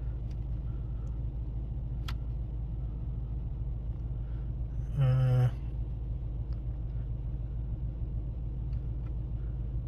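2012 Mustang GT's 5.0 Coyote V8 idling steadily, heard from inside the cabin after a fresh oil change. A single click comes about two seconds in, and a short steady tone lasting half a second comes about five seconds in.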